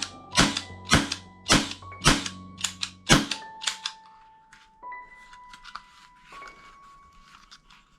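Toy gun firing, about seven sharp shots roughly half a second apart, then lighter clicks from about three seconds in. Held electronic tones step from one pitch to another throughout.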